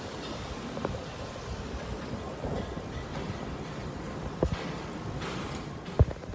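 Wind and road noise on a phone microphone riding along on a bicycle in street traffic, with a couple of sharp knocks from the phone being moved near the end.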